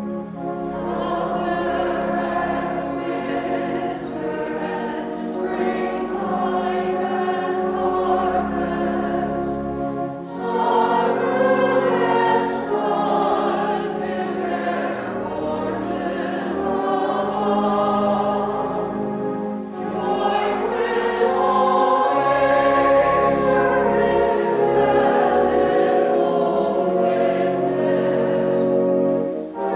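A small choir of women singing together, phrase after phrase, with short breaks about ten and twenty seconds in.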